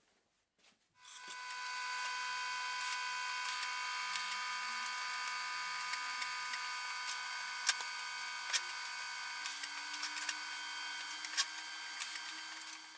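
Electric arc welding on stainless steel plate: a steady hiss and crackle with scattered sharp pops, starting about a second in and stopping near the end, as two discs are tack welded together round the edge.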